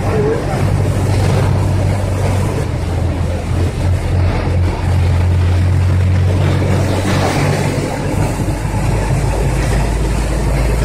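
Engine hum and road and wind noise of a moving vehicle, heard from inside it. The low hum drops in pitch about seven seconds in.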